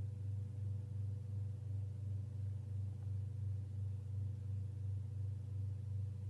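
Steady low electrical hum with a fainter higher tone, swelling and fading about three times a second: the background noise of a poor microphone setup.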